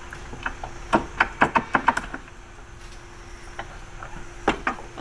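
Metal rigging hardware on a JBL VTX A8 base plate clinking and clacking as the angle plate and quick-release pin are handled: a quick run of sharp clicks about a second in, and a couple more near the end.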